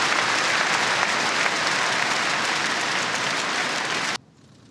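Arena crowd applauding a won point in a table tennis match, an even clapping hiss that cuts off suddenly about four seconds in.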